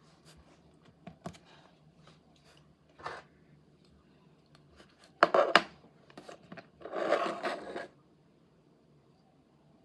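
Model-airplane packaging being handled and opened: scattered clicks and short scrapes, with louder rubbing and scraping about five seconds in and again for about a second near seven seconds.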